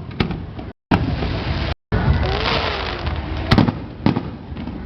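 Aerial fireworks bursting: several sharp bangs, the loudest about three and a half seconds in, over a steady crackle and rumble. The sound cuts out briefly twice in the first two seconds.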